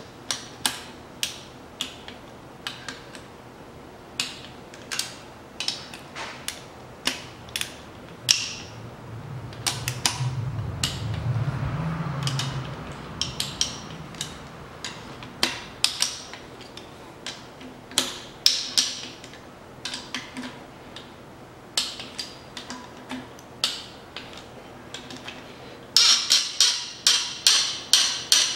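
Torque wrench ratcheting and clicking as the upper oil pan bolts of a Mitsubishi 4B10 engine are tightened to their final torque stage, single clicks throughout and a fast run of ratchet clicks near the end. A low hum rises briefly about midway.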